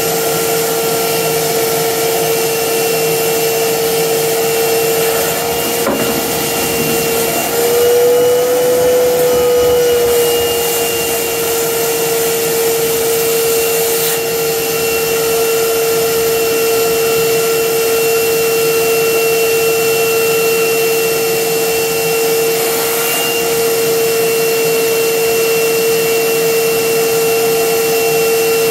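Wet vac motor running steadily with a loud whine, its hose held to the cylinder's drain-off to draw out the water. The pitch and loudness rise a little about eight seconds in, then settle.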